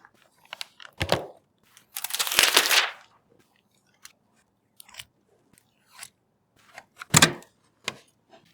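Hands-on handling sounds of PC parts: a sharp knock about a second in, a rustling scrape lasting about a second, scattered small clicks, and a loud click near the end.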